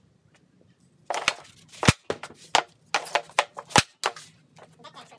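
Hockey stick blade clacking a puck on a hard shooting pad: a quick run of sharp taps about a second in, then hard cracks of wrist or snap shots. The two loudest come about two seconds in and near four seconds.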